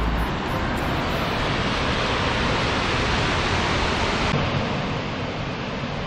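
Gibbon Falls waterfall rushing: a steady, even hiss of falling water that drops slightly in level and brightness about four seconds in.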